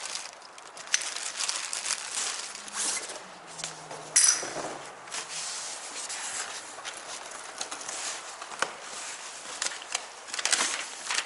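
Cardboard box flaps and plastic wrapping being rustled and crinkled as coilover parts are unpacked by hand, in irregular rustles and crackles with one sharper, louder noise about four seconds in.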